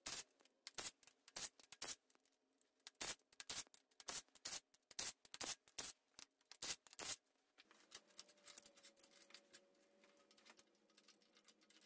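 Faint, irregular metallic clicks and taps of tools and sockets working bolts on a cast-iron cylinder head. Over the last few seconds there is a faint steady hum instead.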